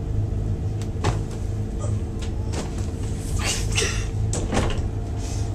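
Scattered knocks, thumps and rustling swishes from people moving about and jostling in a room, over a steady low hum.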